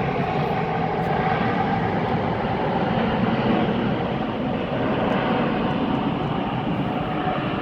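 Jet airliner engines, a loud, steady rush of noise with a faint tone in it that fades after the first second.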